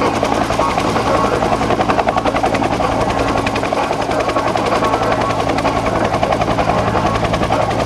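Bell UH-1 Huey helicopter hovering close by, its two-bladed main rotor beating in a rapid, even rhythm over the steady hum of its turbine.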